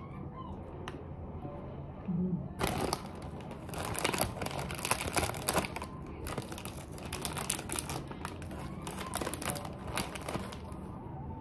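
Food packaging crinkling and rustling as it is handled close by, beginning about two and a half seconds in and going on for about eight seconds as a dense run of crackles.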